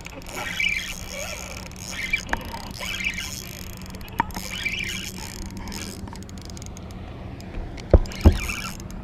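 Handling noise of a spinning rod and reel as a hooked fish is reeled in, over a steady low hum. Two sharp knocks come near the end.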